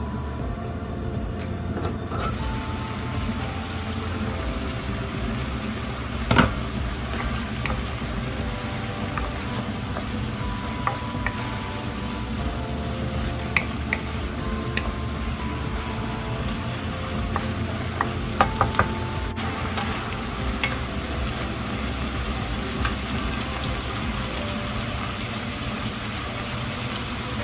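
Food sizzling as it is stir-fried in a pan. A utensil knocks sharply against the pan about six seconds in, and again in a quick run of knocks around eighteen seconds in.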